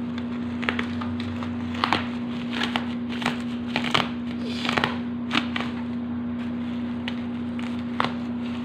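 Cardboard shipping box and its packing being opened by hand: irregular crinkling, rustling and tearing with scattered sharp clicks, over a steady hum.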